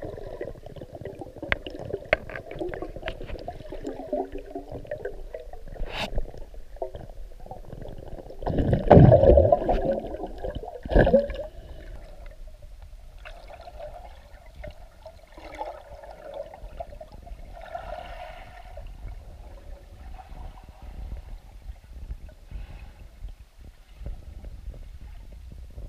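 Muffled underwater water noise heard through a submerged camera: sloshing and gurgling with scattered light clicks. There is a sharp click about six seconds in and a louder gurgling rush from about eight and a half to ten seconds, with another short burst near eleven.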